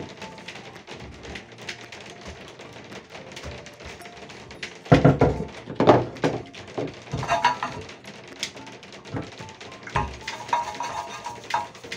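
A paintbrush knocking and scraping against the rim of a plastic cup and inside terracotta pots while sealer is brushed on, with two louder thunks about five and six seconds in. Soft background music plays underneath.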